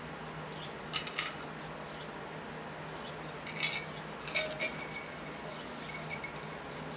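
Sparrows chirping outdoors: a few short, sharp chirps about a second in and a cluster of them between three and five seconds in, over a steady low hum.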